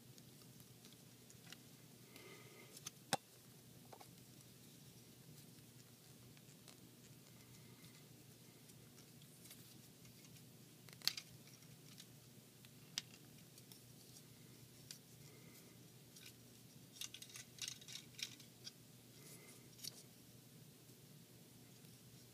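Small clicks and taps of plastic action-figure parts being handled and fitted together, sparse over near-quiet room tone, with a quick cluster of clicks about three-quarters of the way through.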